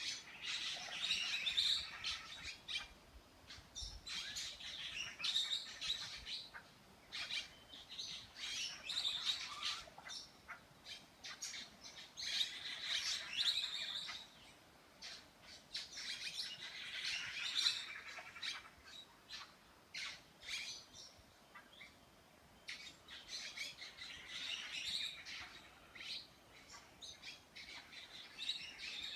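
Birds chirping and squawking in repeated bursts of rapid calls every few seconds, with quieter gaps between.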